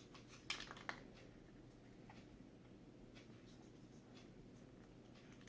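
Near silence with faint handling of the GoPro's plastic housing: a few light clicks about half a second and a second in, then only small scattered ticks.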